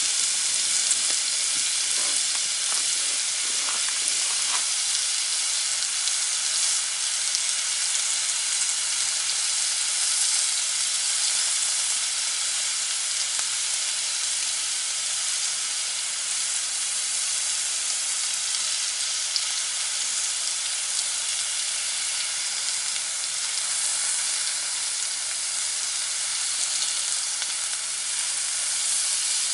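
Lamb sizzling as it fries on a grill plate: a steady hiss, with a few sharp crackles in the first few seconds.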